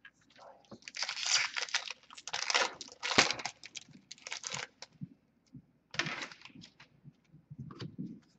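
Hockey trading cards being shuffled and flipped through by hand: several short bursts of papery rustling and sliding, with small clicks of card edges in between.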